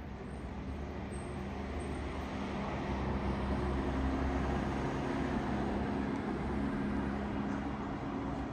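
A motor vehicle driving past, its engine and tyre noise swelling to a peak about four seconds in and then easing off.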